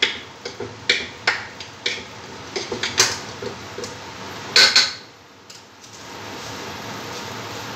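A steel bowl clinking and knocking as hands work flour and water into crumbly atta dough: irregular sharp metallic clicks about twice a second, loudest just before five seconds in, then only a steady hiss.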